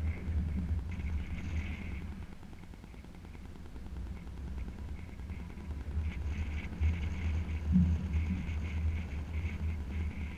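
Wind buffeting the microphone, with stretches of fast clicking from a fishing reel being cranked while a fish is reeled in, early on and again for the last few seconds.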